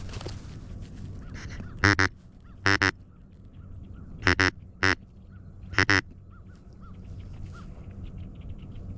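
Loud, nasal mallard hen quacks: nine short notes in five quick groups of one or two, spread over about four seconds, over a steady low hum.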